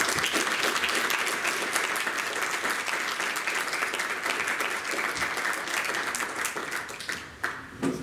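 Audience applauding, many hands clapping at once, fading out near the end.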